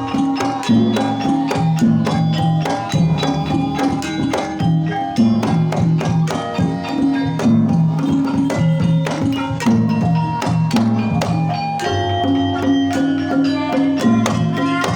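Javanese gamelan music in Banyumasan tayub style: a steady rhythm of repeated pitched percussion notes with sharp strikes.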